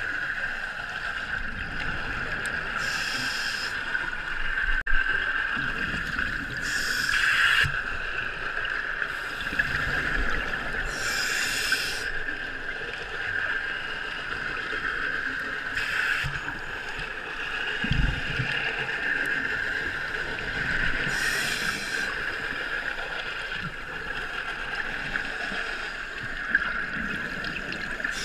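Scuba diver breathing through a regulator underwater: a hiss of air and bubbles comes about every four to five seconds over a steady underwater hiss, with an occasional low thump.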